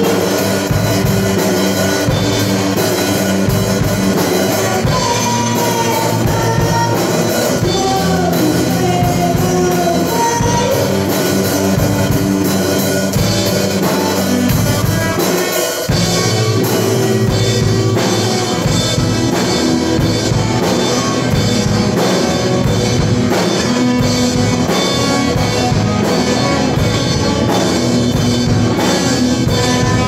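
Rock song played by a band on drum kit and guitar, with a steady drum beat.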